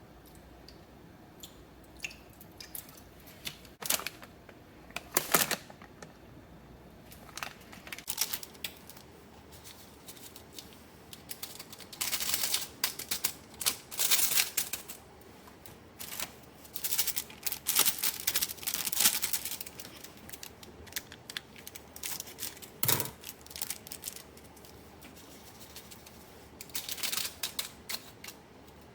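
Irregular clicks, knocks and short rustling strokes of food being prepared by hand, some coming in quick clusters.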